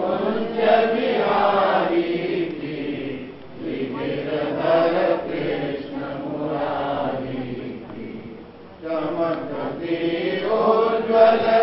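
Several voices chanting together in long, drawn-out phrases, with short breaks about three and a half and eight and a half seconds in.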